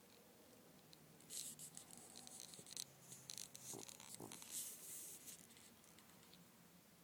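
Faint rustling and rubbing, starting about a second in and lasting about four seconds, with a sleeping cat snoring softly: two short snores come about halfway through.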